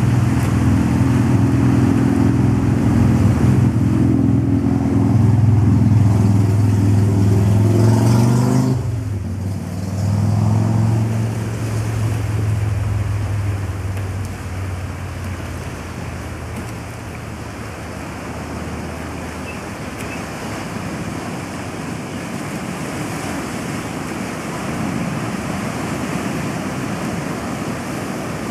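A motor vehicle's engine runs steadily, then drops in pitch and fades away about nine seconds in. Steady surf is left behind it.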